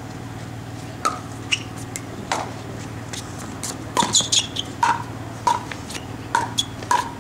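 Pickleball paddles striking the plastic ball in a doubles rally: a series of sharp pops, about eight, coming quicker in the second half of the point, with brief sneaker squeaks on the hard court.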